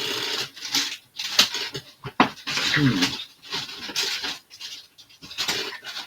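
A dog panting in quick breathy bursts, with a short falling whine about three seconds in.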